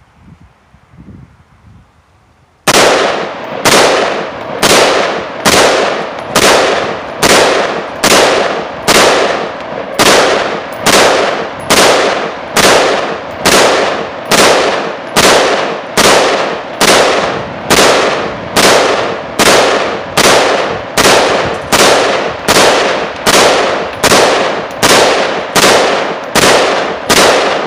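10.5-inch AR-15 pistol firing 62-grain green-tip 5.56 in steady semi-automatic fire. About thirty shots, a little under one a second, start about two and a half seconds in. Each is a sharp crack with a ringing tail, and the pistol cycles every round with this ammunition.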